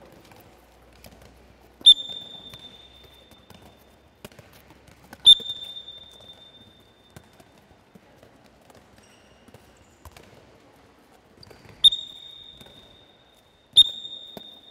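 A handball bouncing hard on a sports hall floor four times at uneven intervals, each bounce a sharp smack followed by a high ring from the ball that fades over about a second.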